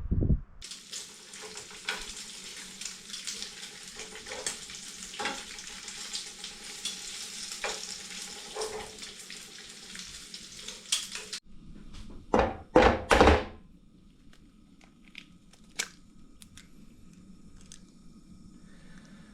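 Eggs frying in a pan: a steady sizzle full of crackles for about ten seconds. It cuts off suddenly, then come a few loud knocks, then faint sizzling with scattered ticks.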